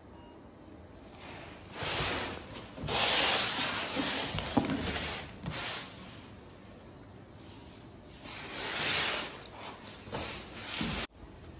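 Tape-wrapped cardboard parcels being handled and shifted on a tiled floor: rubbing and scraping in several bursts, the longest a couple of seconds, stopping abruptly near the end.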